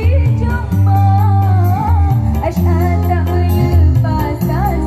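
Girls' choir singing a melody over backing music with held bass notes.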